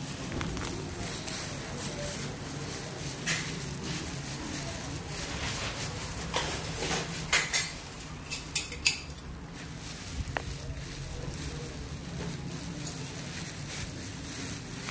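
A few sharp clinks and knocks of hard objects, loudest in a quick cluster about seven to nine seconds in, over a steady low hum.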